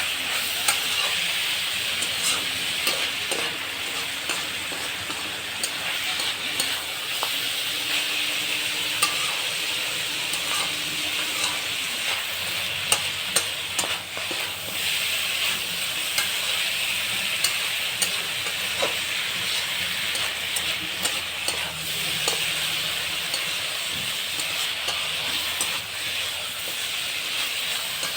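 Chicken curry frying in oil in a kadai, sizzling steadily while a utensil stirs it, with frequent short scrapes and clicks against the pan.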